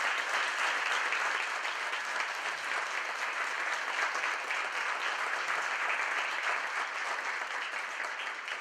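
Audience applauding in a large hall: dense, steady clapping that begins to die down near the end.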